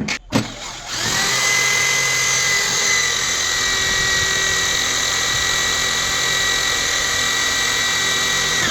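Electric hand drill running steadily at full speed, boring the screw holes for mounting a door closer. A couple of clicks come just before it starts, about a second in.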